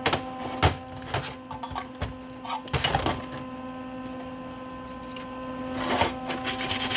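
Scattered clicks and knocks of metal parts and tools being handled on a workbench, over a steady electrical hum. Near the end a scraping starts.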